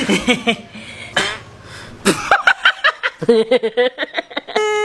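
A woman laughing hard in quick repeated bursts. Just before the end a high, steady held tone cuts in abruptly.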